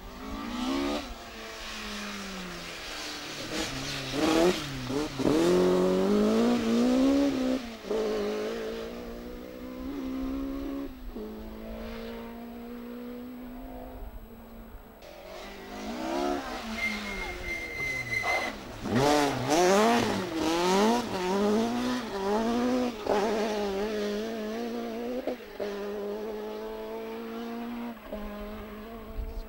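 Mk2 Ford Escort rally car engine revving hard through the gears at speed, its pitch repeatedly climbing under full throttle and dropping at each gear change or lift. The car comes by loudly about five seconds in and again about twenty seconds in.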